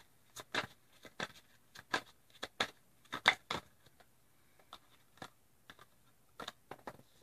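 Tarot cards being handled: a string of irregular sharp snaps and taps as the deck is shuffled and cards are pulled and laid on the table, busiest in the middle.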